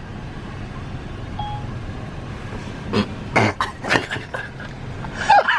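Steady low rumble inside a vehicle cab, like an idling engine heard from the seat. About three to four seconds in come four short, sharp breathy noises, and a voice breaks in right at the end.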